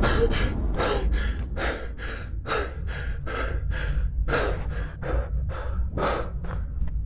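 A man panting hard, about two quick breaths a second, over a steady low rumble.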